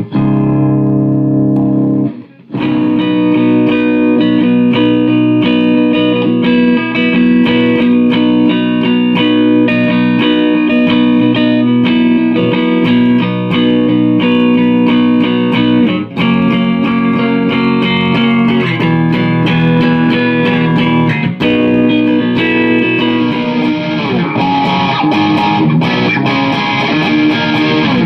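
Electric guitar tuned to drop D, played through a Behringer GMX212 modeling amp in a test of the repaired amp, sounding clean of the scratchiness it had before. It plays continuous chords and riffs, with a short break a couple of seconds in, and the tone turns brighter near the end.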